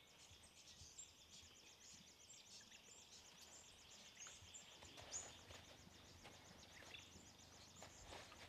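Near silence: faint, high-pitched chirping repeated several times a second, from small birds or insects in the surrounding trees.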